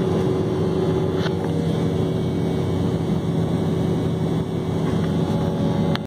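Steady cabin drone of a jet airliner in cruise-climb flight: engine and airflow noise with a constant low hum running through it.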